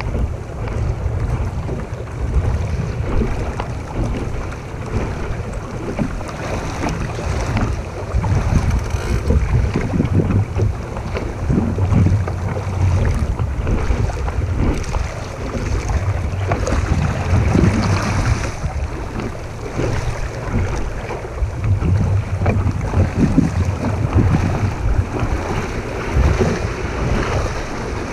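Wind rumbling on the microphone over rushing, splashing water around a Sunfish sailing dinghy.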